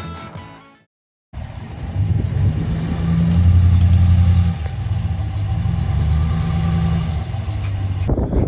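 Background music fading out, a short gap, then a motor vehicle's engine running steadily, louder for a second or so about three seconds in.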